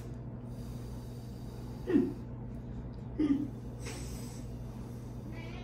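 Two short, low vocal sounds from a person eating, about two and three seconds in, followed by a brief breathy rush of air. A steady low hum runs underneath.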